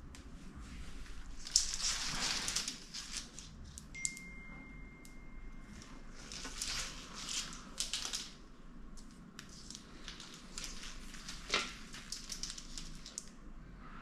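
Rustling and crinkling with occasional light clicks and taps, as the plastic-sheathed wires and plastic parts of a fog-light wiring harness are handled.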